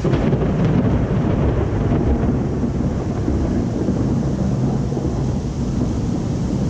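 Thunder: a sudden crack at the start, then a long, loud, low rolling rumble.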